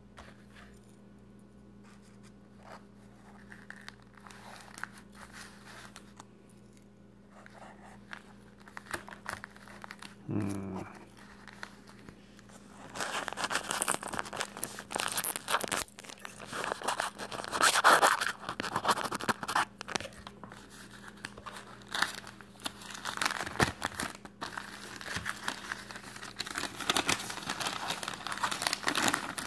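Paper mailing envelope and packaging being handled and opened: crinkling and rustling, faint at first and becoming loud and dense about halfway through.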